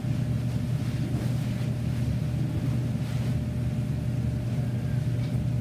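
Steady low background hum of the recording room, with a faint steady higher tone and no speech.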